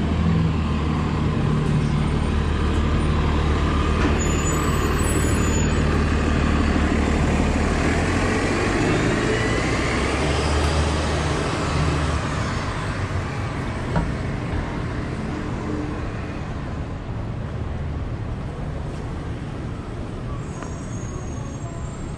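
Street traffic led by a heavy road vehicle's engine running close by with a steady low drone, which fades over the second half as the vehicle moves off. There is one sharp click about 14 seconds in.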